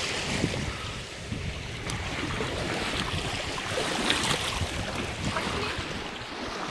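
Wind buffeting the microphone over small lake waves lapping, a steady rushing noise with a low rumble.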